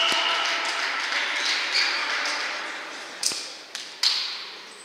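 Futsal ball kicked and bouncing in an echoing sports hall: sharp knocks at the start and three in quick succession about three to four seconds in, over a din of hall noise that fades away.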